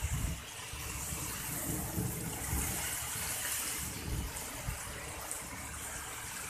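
Heavy rain pouring down steadily, an even hiss.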